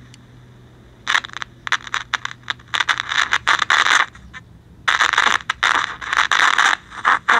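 Soviet Sokol 310 transistor radio's speaker putting out loud, irregular bursts of scratchy static, starting about a second in, as the broadcast-band oscillator trimmer is turned with a screwdriver.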